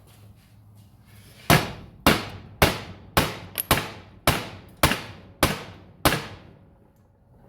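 Hammer blows on the 1949 Chevrolet Deluxe's chrome-plated steel rear bumper, straightening it: about ten ringing metal strikes, roughly two a second, beginning about a second and a half in.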